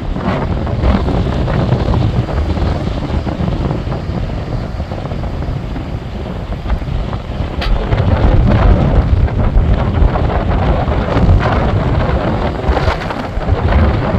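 Tropical-storm wind gusting hard, buffeting the microphone with a heavy rumble that rises and falls, the gusts growing stronger about halfway through.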